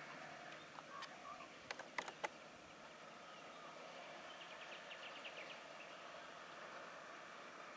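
Faint outdoor ambience with birds chirping and a quick run of short ticks about five seconds in, broken by a few sharp clicks about two seconds in.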